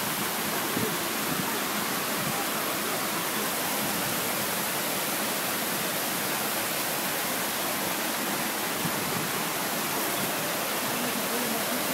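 Small rock waterfall cascading into a pond: steady splashing of falling water.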